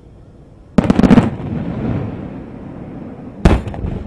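Aerial fireworks shells bursting: a loud bang with a quick cluster of cracks about a second in, and a second sharp burst near the end, each trailing off into a low rumble.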